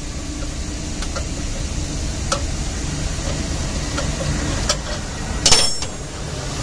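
Spanner clicking on the metal nut and stud of an air filter housing as the filter element's retaining nut is turned, with a sharp metallic clank about five and a half seconds in. A steady low machinery rumble runs underneath.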